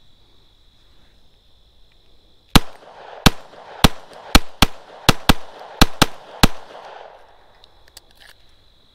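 Semi-automatic pistol fired ten times in a quick, slightly uneven string, beginning about two and a half seconds in, with a short echo after each shot.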